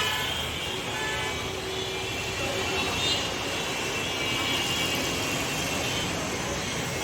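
Congested street traffic: a steady din of engines with faint horns tooting now and then.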